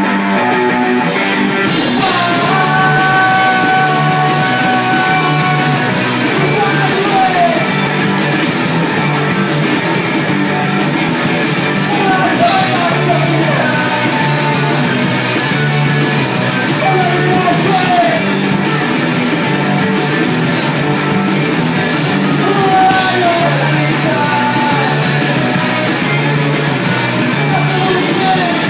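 Live indie rock band playing: electric guitars over a drum kit, steady and loud.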